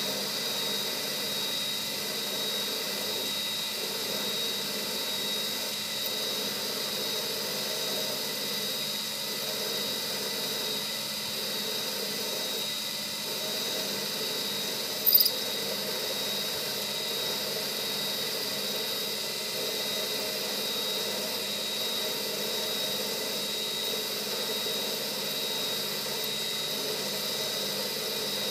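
Metal lathe running while a twist drill bores into the spinning workpiece, a steady high-pitched whine over the machine's running sound. A brief sharp click about halfway through.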